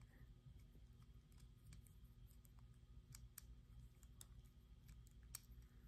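Near silence with a few faint, scattered clicks from the small motor and screws of an RC crawler being handled and worked loose by hand.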